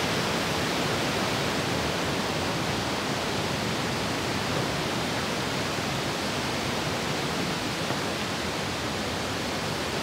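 Steady rush of white water from a fast river tumbling over rocks below a bridge, close to a waterfall.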